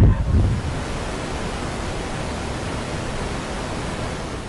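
Steady rushing noise of wind on the microphone, heavier and lower for about the first half second, then even, fading near the end.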